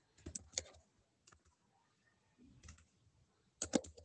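Computer keyboard keys clicking as text is typed, in a few short scattered groups of keystrokes, the loudest group near the end.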